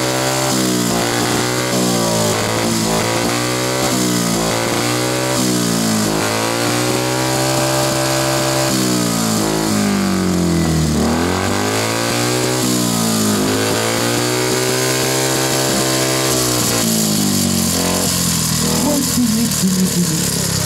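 Motorcycle engine revved hard again and again, its pitch climbing and dropping with each blip, with a couple of longer full-throttle pulls in the middle. Near the end the revving breaks up into an uneven, rough sound. The host takes it for a broken valve, the engine burnt out by the revving.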